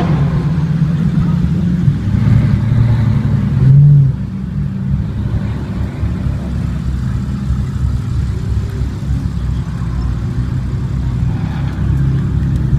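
Supercar engines, a Porsche 911 and a McLaren 650S Spider among them, running at low revs as the cars crawl past in a line. A louder swell from the nearest car comes about four seconds in, and a smaller one near the end.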